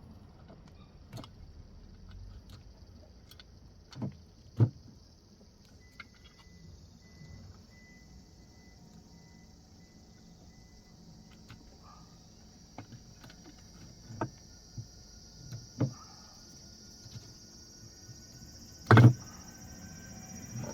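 Scattered knocks and clicks of hard objects being handled, the loudest a heavy knock about nineteen seconds in, over a faint steady hiss.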